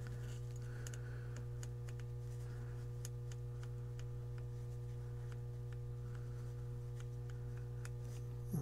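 Faint, irregular small clicks as a volume potentiometer is turned and handled by hand, over a steady low electrical hum.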